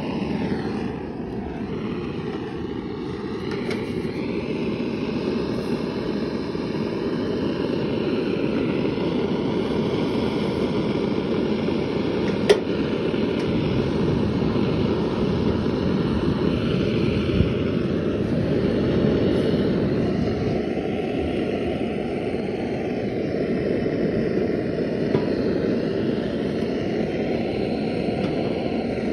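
Steady roar of a gas-heated copper soldering iron's burner while zinc gutter seams are soldered, with a couple of sharp clicks partway through.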